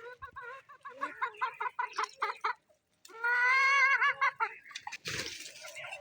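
Hens clucking in a quick run of short notes, then one hen giving a loud, drawn-out call with a wavering pitch.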